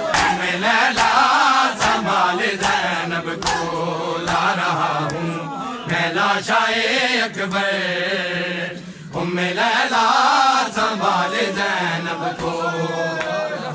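Men chanting an Urdu noha together, with the sharp, rhythmic slaps of open hands striking bare chests in matam, a little more than one a second.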